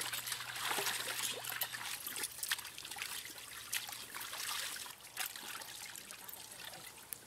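Wet, irregular trickling and clicking of paste being ground with water on a stone ammi (hand grinding stone), as turmeric and ginger-garlic are worked by hand. Louder for the first few seconds, then easing off.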